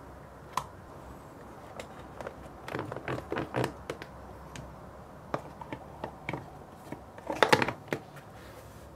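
Plastic lids of a small bento box being fitted and pressed shut: scattered clicks and knocks of plastic on plastic, with a cluster of taps about three seconds in and the loudest run of clicks near the end.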